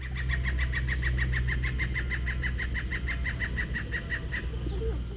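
Stork-billed kingfisher giving its loud contact call: a long, even run of rapid repeated notes, about eight a second, that stops about four and a half seconds in. A steady low rumble lies underneath.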